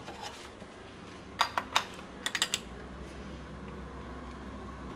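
A few sharp metal clicks and taps from a hand tool on a Volkswagen diesel engine's timing-belt tensioner, as a hex key is fitted to it: two single clicks about a second and a half in, then a quick run of three or four about a second later.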